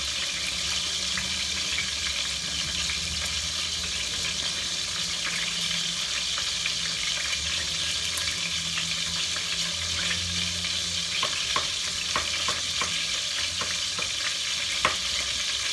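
Veal sizzling in oil in a steel pot, a steady hiss with a low hum underneath. A kitchen knife chops capers on a plastic cutting board, and in the second half it taps quickly and regularly, about two or three strokes a second.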